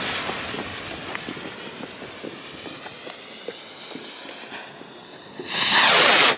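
A Funke Kometenschauer 20-gram skyrocket's lit fuse hisses and sputters for about five seconds, with scattered small crackles, then the rocket launches with a loud rushing whoosh that cuts off suddenly.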